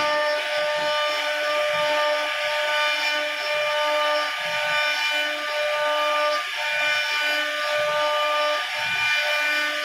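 CNC router spindle running with a steady whine while its bit carves a relief pattern into solid wood, over a rough hiss of cutting that grows louder right at the start.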